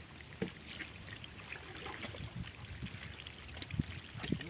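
Wet mud and shallow water squelching and splashing as hands dig through a drained pond bed, in irregular small splats with a few sharper ones near the end.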